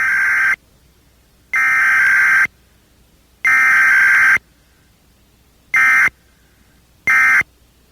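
Emergency Alert System digital header bursts: harsh, warbling data tones sent in separate bursts with short silences between them. The tail of one burst is followed by two long bursts of about a second each, then two short bursts near the end.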